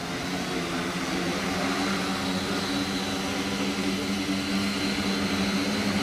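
Four small electric motors and propellers of a homemade quadcopter spinning up and lifting it off, growing louder over the first second, then holding a steady buzzing drone with a thin high whine on top.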